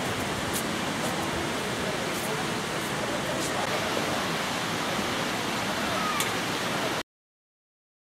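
Steady rushing outdoor noise with faint voices and a few light clicks, cutting off abruptly into silence about seven seconds in.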